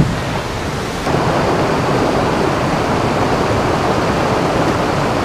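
Rapids of a rocky forest river rushing over boulders at a small cascade, a steady loud rush close to the microphone that grows louder about a second in.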